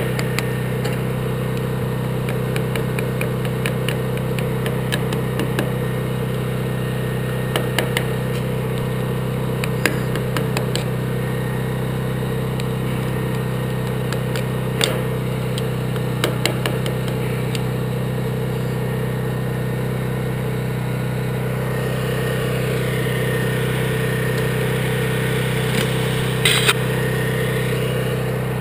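Portable generator engine running steadily at a constant speed, with scattered metallic clicks and taps of hand tools against the windmill head.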